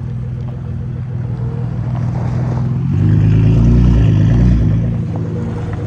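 Flood-damaged Nissan GT-R's engine running as the car drives, growing louder about three seconds in and easing off a second and a half later.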